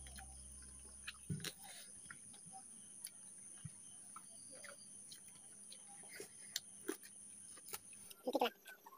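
Quiet mukbang eating sounds: faint chewing and light scattered clicks of fingers working rice on plates and touching dishes. The tail of background music dies away in the first second or so.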